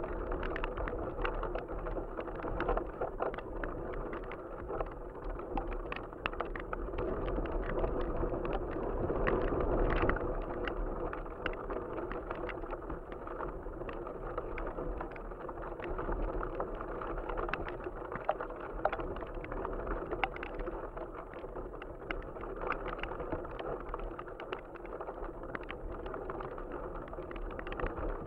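Wind rushing over a camera riding on a flying box kite, with the kite's sail and frame fluttering and rattling in many small, irregular ticks.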